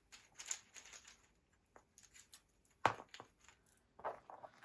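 Light rustling and scattered small clicks of cards and small objects being handled on a table, with one sharper click about three seconds in.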